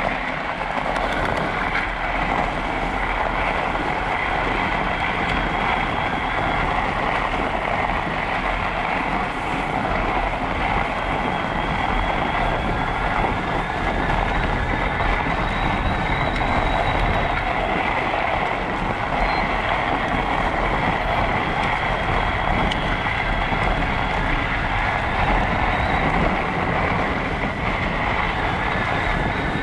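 Steady rolling noise of an electric mountain bike riding along a packed snow trail, with a faint, thin, steady whine above it.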